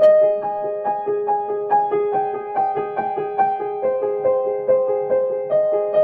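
Background music: a piano melody with single notes struck at an even pace, about two or three a second.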